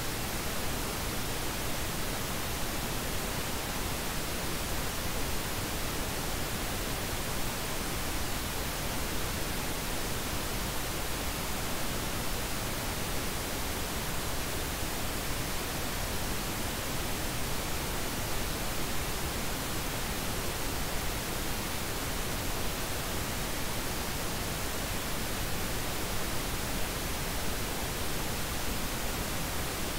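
Steady pink noise: an even, unchanging hiss spread from deep rumble to high treble, with no tones or separate events. It is a generated noise bed of the kind laid under subliminal audio.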